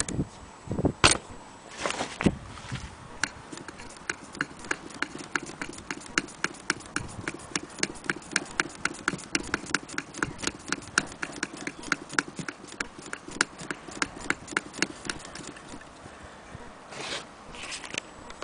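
Antique Willcox & Gibbs sewing machine being run, its mechanism clicking at an even pace of about five clicks a second for some twelve seconds, then stopping. A few louder knocks come just before it starts, and two softer ones near the end.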